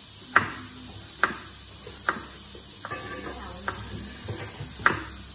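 Large kitchen knife chopping on a wooden cutting board: five sharp chops, about one a second and unevenly spaced, over a steady background hiss.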